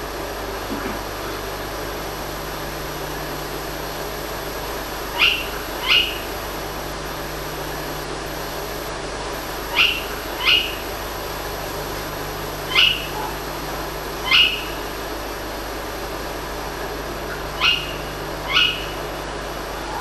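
Owl calls: short, sharp calls that come mostly in pairs less than a second apart, repeated every few seconds, over a steady background hiss and low hum.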